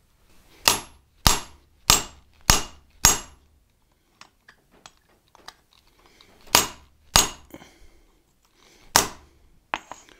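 Hammer striking a hand punch driving a hole through a red-hot bar of hard salvaged high-carbon steel set on a bolster on the anvil: five sharp ringing strikes about 0.6 s apart, a pause with light clinks, then three more strikes. The steel is so hard that punching is difficult.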